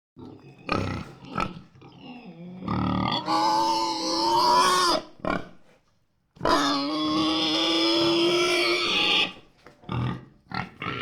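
An animal calling: a few short grunts, then two long, drawn-out, steady-pitched cries, each about two and a half seconds long, with a short pause between them.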